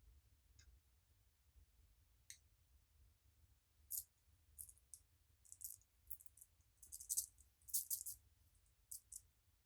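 Crisp, high rattling and crackling of small hard bits being handled, in short irregular bursts that start about four seconds in and come thickest near the end.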